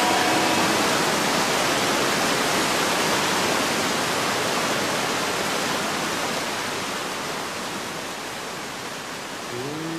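Rushing whitewater rapids: a steady hiss of churning water that slowly gets quieter.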